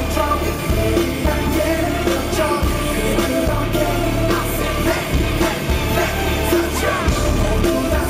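Live pop dance music over a concert PA: a heavy, steady bass beat with a male voice singing over it.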